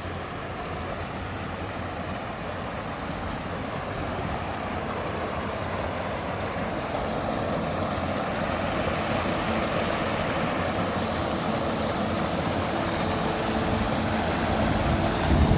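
Running water of a river: a steady rushing that grows gradually louder.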